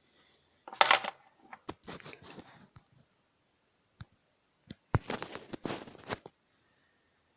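Hyundai Elantra HD plastic sunglasses holder being handled: scraping and rustling in two spells, with several sharp plastic clicks between and within them.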